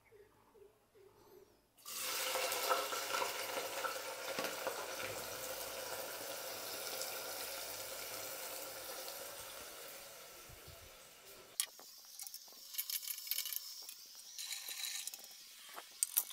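Sliced onions go into hot oil in an aluminium pressure cooker and start sizzling suddenly and loudly, then the sizzle slowly dies down. About two-thirds of the way through it gives way to a quieter frying hiss with many sharp crackles and pops.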